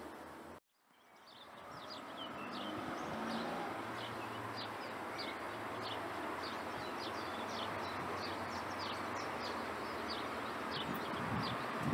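Birds chirping: many short, high, falling calls over a steady outdoor background hiss. The sound cuts out completely about half a second in and fades back up over the next couple of seconds.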